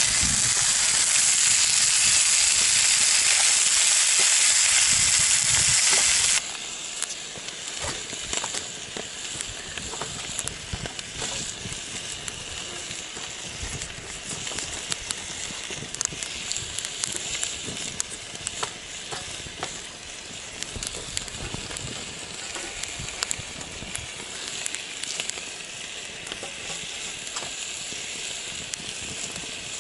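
Trout frying in a pan, sizzling loudly at close range; about six seconds in it drops to a quieter sizzle over a small titanium wood-burning stove, with the wood fire crackling and sticks snapping and clicking as they are fed in.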